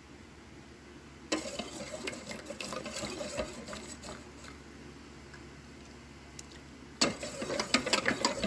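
A utensil stirring liquid batter in a bowl, with small clinks against the side. The stirring starts about a second in and fades, then turns suddenly into fast, rapid clicking mixing near the end.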